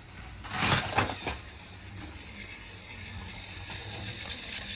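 Toy train and its plastic track: a short clatter with a couple of sharp clicks about a second in, then a steady mechanical whir.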